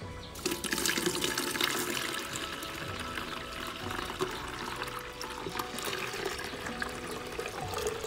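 Blended soybean milk poured from a blender jug through a fine mesh strainer into a plastic bucket, a steady splashing stream that starts about half a second in; it is the second straining, to make the soy milk smoother.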